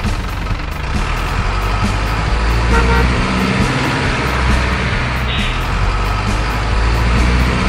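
Heavy dump truck engine running with a steady low rumble as the loaded truck drives off. A brief horn-like tone sounds about three seconds in, and a short hiss a little after five seconds.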